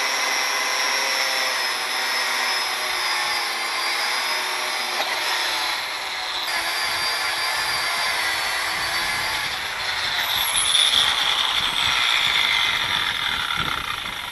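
A handheld corded electric power tool running continuously while working on a bare Caterpillar 1693 engine block. Its motor whine drifts up and down in pitch as the load changes, and it winds down near the end.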